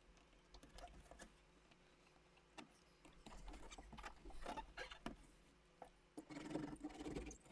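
Near silence, with faint scattered clicks and rubbing from foil-faced sound deadener being pressed down by hand on a car's floor pan.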